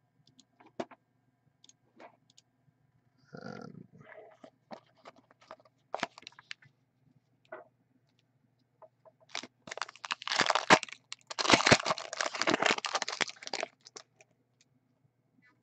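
Foil hockey card pack wrappers handled with scattered light crackles, then a pack torn open and crinkled for about four seconds starting near the ten-second mark, followed by a few soft clicks of cards being handled.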